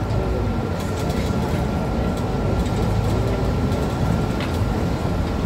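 Cabin of a Mercedes-Benz Citaro C2 city bus under way: a steady low engine rumble with a faint constant high whine and a few light rattles.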